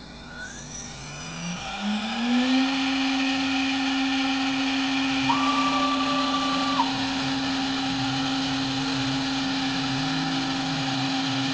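CNC router spindle spinning up, its whine rising in pitch over the first two seconds or so, then running at a steady pitch as the bit cuts the maple inlay stock.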